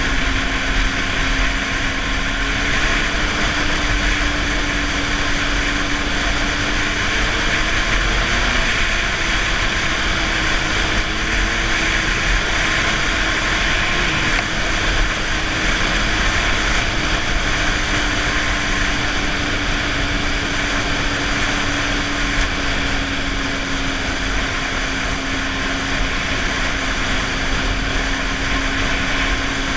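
Snowmobile engine running at a steady cruising speed, heard from the rider's seat over wind and track noise. The engine pitch climbs slightly about eight seconds in and eases back down in the second half.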